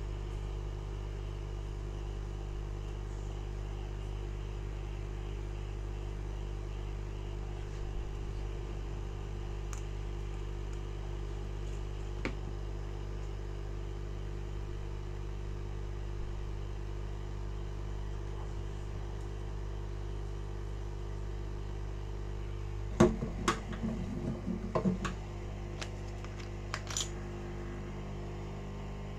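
A steady electrical hum from workshop equipment runs throughout. Near the end comes a quick series of sharp clicks and taps as tools work at the glued screen of an iPhone 7 Plus to pry it open.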